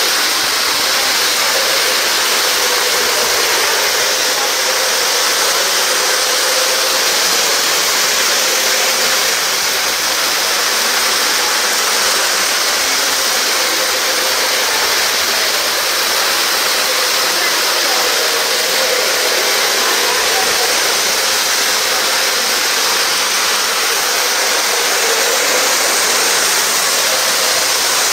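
Several three-rail O-gauge model trains running around their track loops: a steady, even rush of wheels and motors with a faint hum through it.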